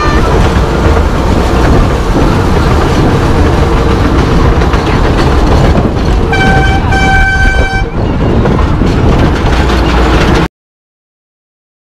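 Miniature fairground train running, with a loud steady rumble and wind noise on the microphone. Its horn toots twice, briefly, a little over six seconds in. The sound stops abruptly near the end.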